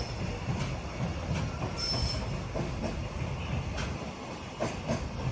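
Freight train rolling slowly on the rails, over a low rumble, with irregular wheel clacks over rail joints and a short, high-pitched wheel squeal about two seconds in.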